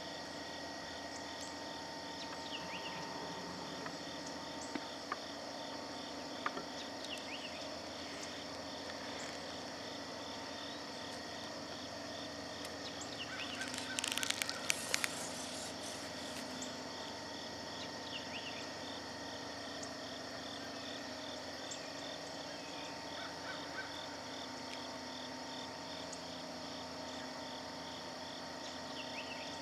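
Steady chorus of crickets and other insects, one call pulsing regularly about twice a second. About halfway through, a few seconds of close rustling with several sharp clicks.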